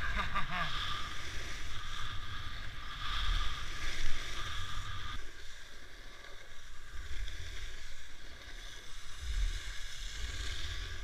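Skiing at speed on freshly groomed corduroy snow: the steady scraping swish of edges carving turns, swelling and easing with each turn, with wind rumbling on the microphone. A short voice call sounds at the very start.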